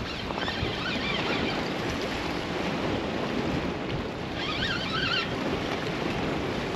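Wind buffeting the microphone in a steady rush, with two short, high, warbling pitched sounds, one near the start and one about four and a half seconds in.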